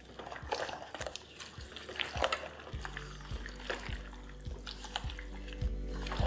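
A gloved hand squishing and mixing raw chicken pieces through thick yogurt, green herb paste and fried onions: irregular wet squelches and smears. Soft background music comes in about three seconds in.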